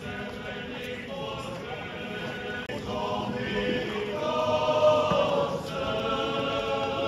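A group of voices singing a slow hymn together, in long held notes that step up and down in pitch, swelling louder about halfway through.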